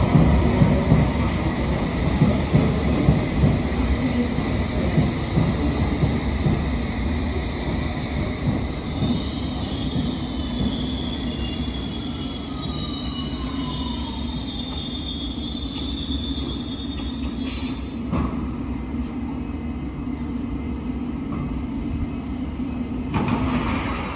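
London Underground S7 Stock train running into the platform and slowing to a stop. A heavy rumble eases off as it slows, with high squealing from the wheels and brakes in the middle and a falling whine as the speed drops. A brief louder noise comes just before the end.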